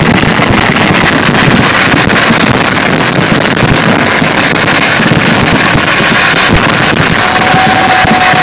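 A dense, unbroken barrage of firework explosions from a vedikettu display. The cracks and bangs run together into one continuous roar that overloads the microphone. A thin steady whistle joins about seven seconds in.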